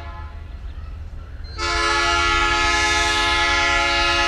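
Train horn sounding one long, steady blast of several notes at once, starting about a second and a half in.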